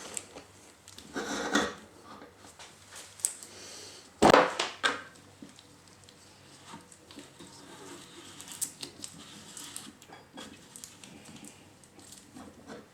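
Small clicks, taps and clatter of hard plastic and metal pressure washer parts being handled during reassembly, with one sharp knock about four seconds in.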